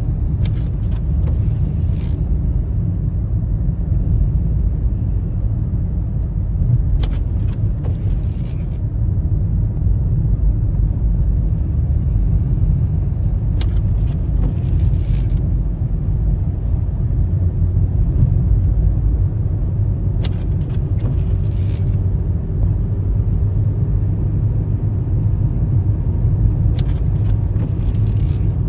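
Car engine and tyres rumbling steadily from inside the cabin while descending in a low gear for engine braking, with a faint hum slowly rising in pitch. Small groups of faint clicks recur about every six and a half seconds.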